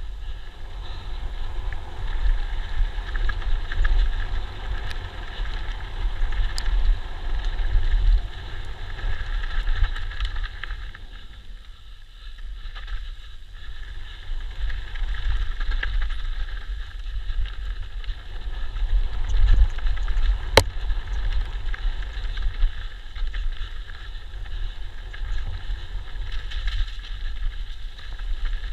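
E-mountain bike ridden fast down a dirt forest trail: continuous tyre roll and rattle with a heavy low rumble on the microphone, swelling and easing with speed, and one sharp knock about twenty seconds in.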